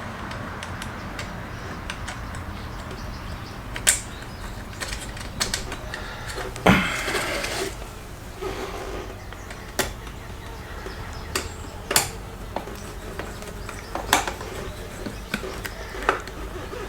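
Scattered light metal clicks and taps as the headlight's bezel ring and its retaining screw are handled and fitted, with a brief scraping rustle about seven seconds in.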